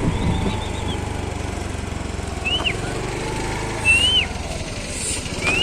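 A steady low engine hum, with a few short, high bird chirps that rise and fall, spaced a second or more apart.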